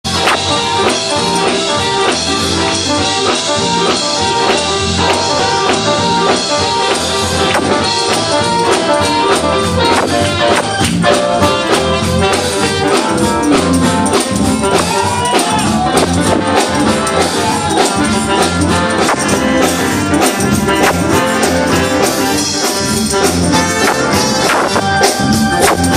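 Live gospel church band playing a praise break: keyboard and drums with a steady, driving beat and a tambourine.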